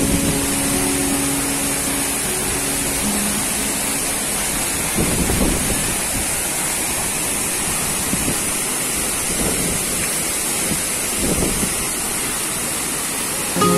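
Steady rush of falling water from the Lembah Anai waterfall plunging into its pool, with the tail of background music fading out in the first few seconds.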